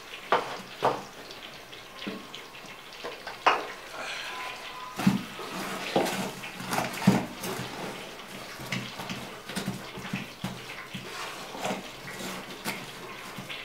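A wooden cooking stick (mwiko) stirring and pressing thick ugali (maize-flour porridge) in a steel pot: irregular wet knocks and scrapes against the pot, coming more often from about halfway through.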